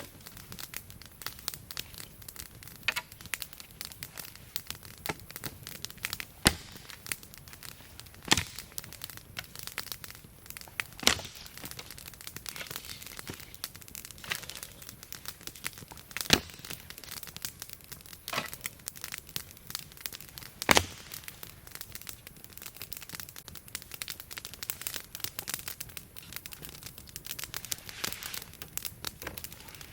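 Campfire crackling steadily, with a sharp pop every few seconds.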